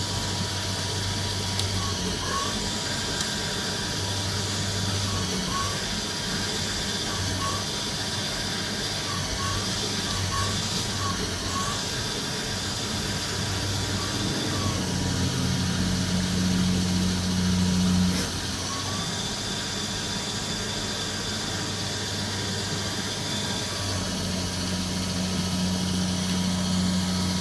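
CNC lathe running a turn-profiling cycle at close to full speed: a steady machine hum with a high whine over it. The hum shifts in pitch a few times, with a louder stretch about halfway through that drops off suddenly, and rises again near the end.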